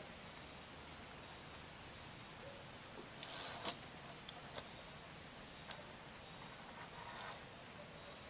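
Faint steady outdoor hiss, with a handful of sharp clicks, two of them louder, from about three to six seconds in.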